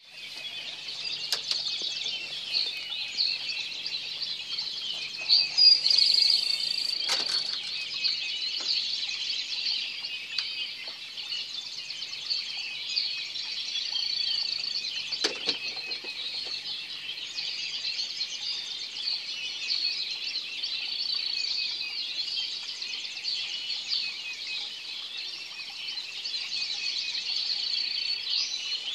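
Dense chorus of many birds chirping and calling over one another in an unbroken wall of high, overlapping notes. It swells briefly louder about six seconds in, and a couple of sharp knocks cut through.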